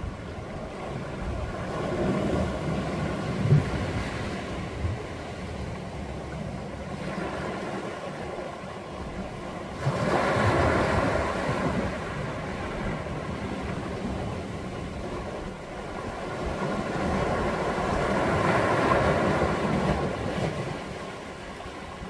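Small sea waves breaking among rocks and washing up over a gravel and pebble shore, then drawing back. They come in surges: one about two seconds in, a sudden louder one at about ten seconds, and a long swell that peaks near the end.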